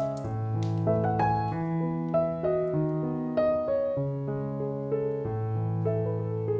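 Background piano music: a melody over held bass notes.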